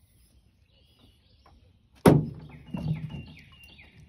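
Birds chirping, then about halfway through a loud hollow thump with a low ring, and a lighter knock a moment later, against the small boat's hull.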